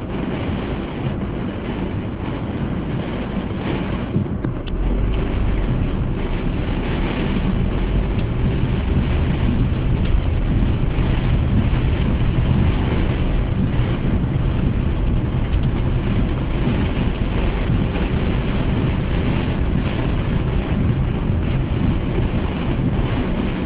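Torrential storm rain and gusting wind beating on a moving car, heard from inside the cabin as a loud steady rush. About five seconds in, the low rumble grows stronger and stays up.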